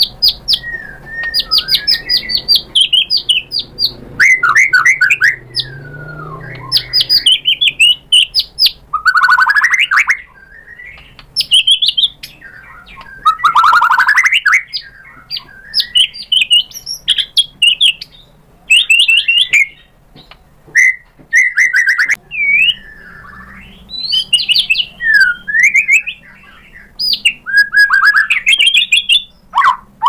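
White-rumped shama (murai batu) singing: a run of short, varied phrases of rapid repeated notes, trills and slurred whistles, with brief pauses between them.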